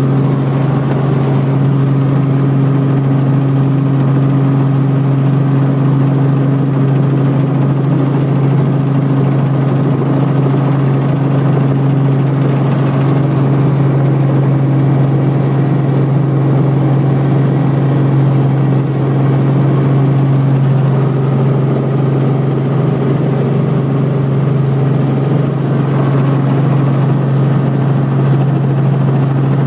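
Robinson R44 Clipper II helicopter heard from inside its cabin during a landing approach. The main rotor and six-cylinder Lycoming piston engine make a loud, steady drone with a strong low hum.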